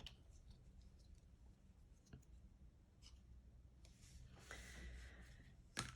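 Quiet handling sounds: a few faint clicks and a brief soft rubbing, then a sharp click near the end as a lid is put on a small container.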